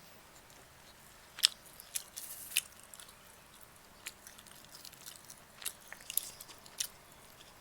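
Close-up eating sounds of someone biting and chewing roast chicken: irregular sharp mouth clicks and smacks with the odd crunch, several seconds apart, with no rhythm.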